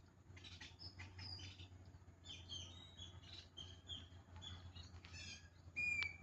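Birds chirping and calling: a quick run of short, high notes from more than one bird, with a louder, clear whistled note near the end.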